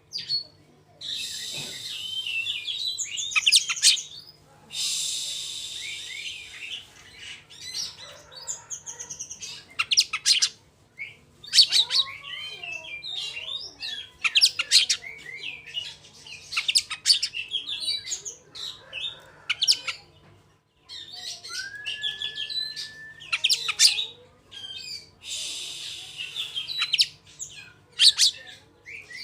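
Oriental magpie-robin (kacer) singing a fast, rolling song in bursts. Quick chirps and trills alternate with harsh buzzy runs and a few drawn-out whistles, with short pauses between phrases.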